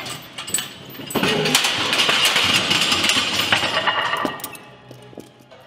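Several steel barbells toppling off a rack one after another, clanging against the rack and each other and crashing onto the floor. The metal rattles and clatters for about three seconds from about a second in, then dies away.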